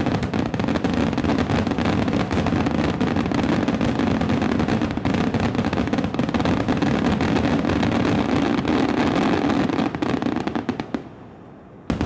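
A fireworks display: a dense, rapid barrage of aerial shell bursts and crackle that dies away about eleven seconds in, then a single sharp bang at the very end.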